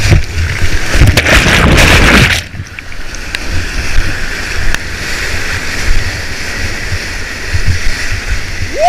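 Whitewater rushing and crashing around a kayak as it runs a steep river drop, with a loud surge of spray about a second in that lasts about a second, then a steady rush of churning water.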